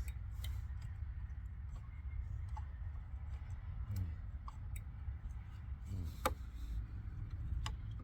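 Scattered light metallic clicks and taps from handling tools and the parts of a large circuit breaker being dismantled, over a steady low hum; one sharper click about six seconds in.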